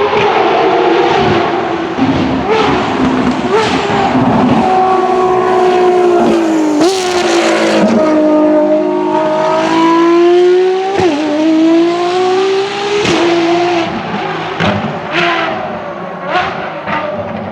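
Ferrari racing car engine at high revs on track. Its pitch slides and then climbs between sudden drops at gear changes. Near the end it fades with a series of sharp cracks as it lifts off.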